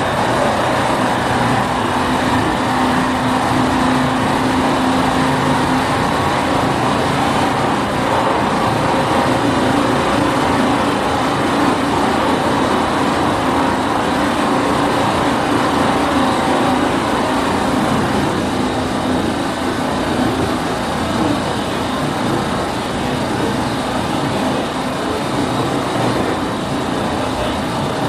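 Running noise of a JR 209 series 500-number electric train's motor car (IGBT VVVF upgrade) heard from inside, over its bogie: a loud, steady rumble with droning tones. It carries an abnormal noise that the owner suspects comes from a failing axle bearing, a mechanical fault rather than an electrical one.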